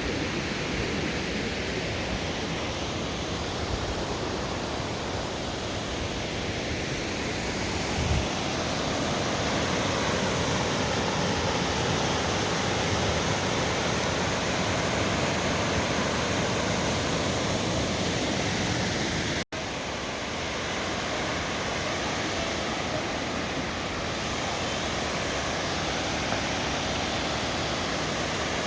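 River water rushing steadily, an even hiss. There is a brief low thump about eight seconds in, and the sound cuts out for an instant about two-thirds of the way through.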